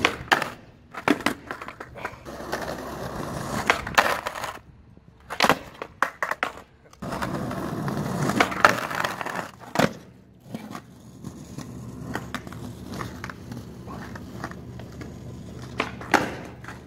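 Skateboard wheels rolling on concrete, with a stretch of the trucks grinding along a waxed ledge in a 50-50. Several sharp clacks of the tail popping and the board landing are spread through it.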